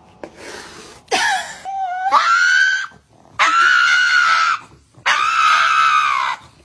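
A pug howling: three long, high cries, the first stepping up in pitch partway through.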